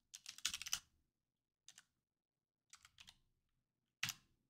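Computer keyboard typing, faint: a quick run of keystrokes, a few scattered key presses, then a louder keystroke near the end.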